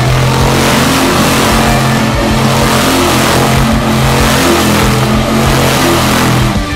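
Monster truck engine revving hard, loud and near-steady in pitch.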